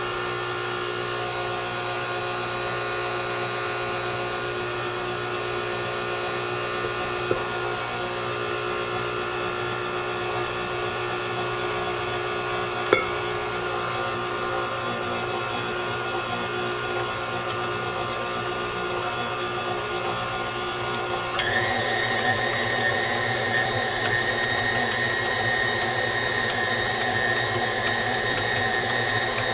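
KitchenAid Artisan tilt-head stand mixer's motor running steadily with the dough hook turning flour and water on the stir setting. About two-thirds of the way in the motor whine jumps higher and louder as it is switched up to speed 2 to knead.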